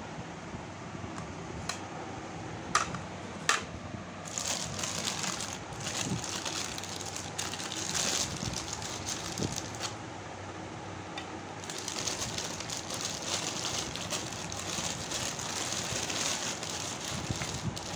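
Thin plastic bag crinkling and rustling as it is handled and opened, in two long stretches. Two sharp clicks come before the rustling starts.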